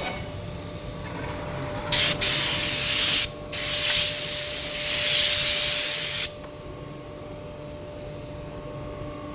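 CNC router spindle running at high speed with a steady whine; from about two seconds in until about six seconds a loud hiss of the 12 mm diamond cutter milling the facade panel, broken briefly in the middle, then the spindle runs on more quietly.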